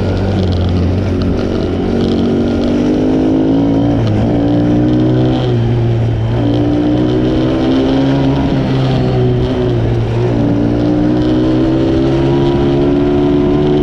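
Small 125cc Chinese ATV's single-cylinder engine running under load as it is ridden, its pitch climbing and then dropping back several times as the throttle and gears change. The engine pulls strongly after a carburettor clean, with "good pep".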